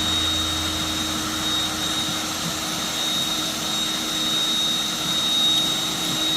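A motorised floor-cleaning machine running steadily, with a constant whine on top of a rushing noise.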